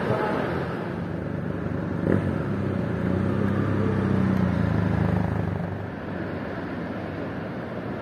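A motor's engine hums, getting louder about two and a half seconds in and fading away about two seconds before the end, over steady outdoor background noise. A single sharp click sounds just after two seconds in.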